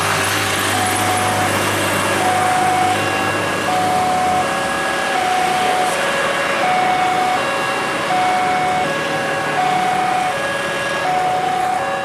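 Railway level-crossing warning alarm sounding while the barriers close: two electronic tones alternating, each held for under a second, repeating steadily. Road traffic noise runs underneath, with a low engine hum that stops about four seconds in.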